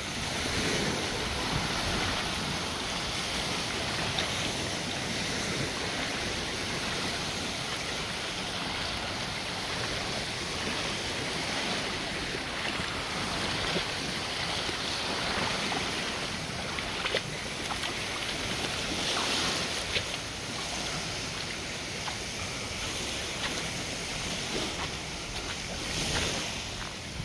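Small waves washing up onto a sandy beach in a steady wash of surf, with wind on the microphone.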